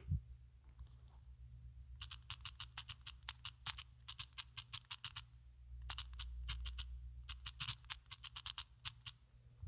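Typing: quick runs of short keystroke clicks, several a second, broken by brief pauses, over a steady low hum.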